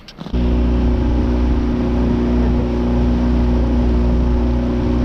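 Boat motor running at a steady speed, heard from aboard, starting abruptly at a cut and holding one steady pitch.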